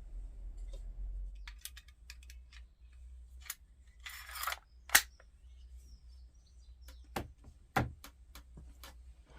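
Small wooden tongue-and-groove boards clicking and knocking as they are handled and fitted together, with a short scrape about four seconds in and the loudest knock just after it.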